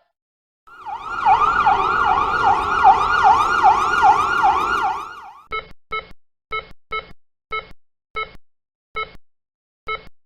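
Emergency vehicle siren in a fast yelp, sweeping up and down about three times a second. It fades in, then stops after about four seconds. A run of short electronic beeps follows, unevenly spaced.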